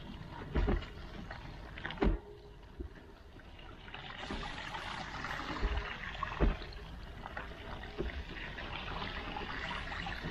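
A hiss of water on wet ground, growing louder about four seconds in, with a few dull thumps.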